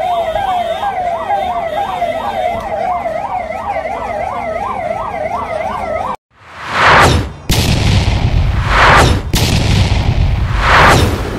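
A siren in a fast yelp, its pitch sweeping up about three times a second, cutting off suddenly about six seconds in. Then come three swelling rushes of noise about two seconds apart, with a low rumble under them.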